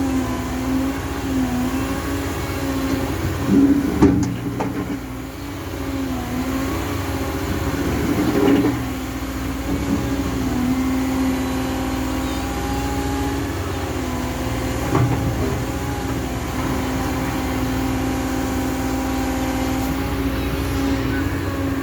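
Caterpillar M315F wheeled excavator's diesel engine running steadily as the machine works, its pitch dipping and recovering again and again under load. A few knocks sound about 4, 8 and 15 seconds in.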